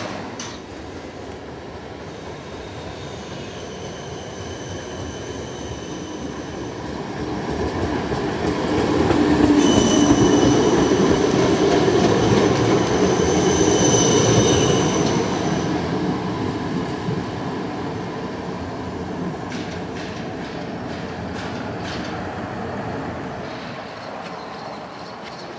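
A tram passing close by, rumbling on its rails with a steady high squeal from the steel wheels, loudest about ten to fifteen seconds in, then fading. A few clacks of wheels over the track near the end.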